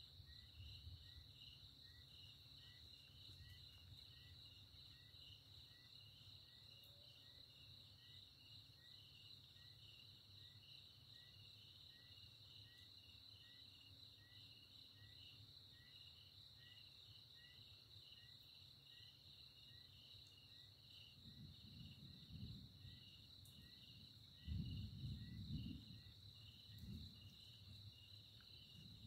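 Crickets chirping steadily all through, with a second small chirp repeating about twice a second. Distant thunder rumbles low from about two-thirds of the way in, in several swells, loudest near the end.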